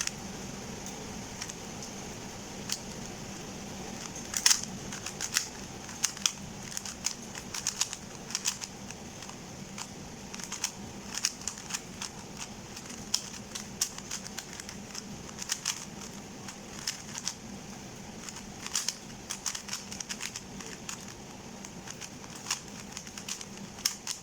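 A GAN 354M magnetic 3x3 speedcube turned rapidly during a timed solve: fast, irregular plastic clicks of the layers turning, several a second, over a faint steady hum.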